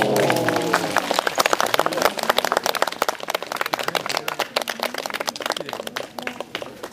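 Spectators applauding with many hand claps that gradually die away, with voices exclaiming at the start.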